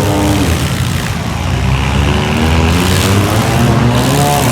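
Several compact-car engines running and revving at once, their pitches rising and falling.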